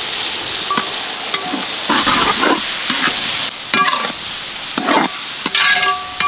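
Chopped tomatoes sizzling in hot oil with fried shallots and green chillies in a large metal pot, as a long-handled metal ladle stirs and scrapes against the pot several times.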